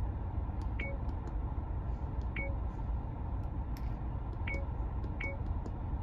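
Short electronic beeps from a 70mai A200 dashcam as its menu buttons are pressed: four in all, each with a faint click, spaced irregularly. Beneath them is a steady low rumble from the car, which is running.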